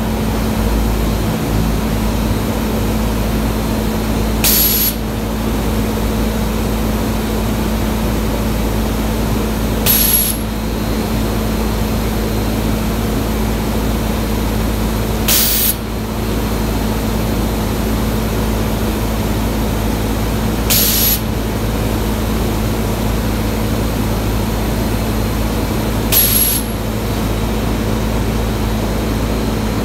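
Automatic powder coating booth running while its spray guns put out powder: a steady drone and hum of moving air. A short, sharp hiss of compressed air cuts in about every five and a half seconds.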